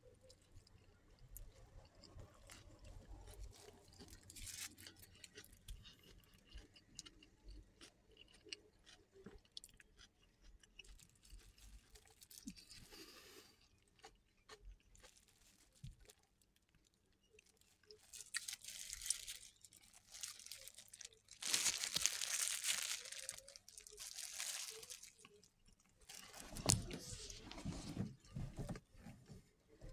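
Close-up chewing and crunching of a toasted bread sandwich filled with chips, with small mouth clicks. In the second half come several louder bursts of noise, each a second or two long.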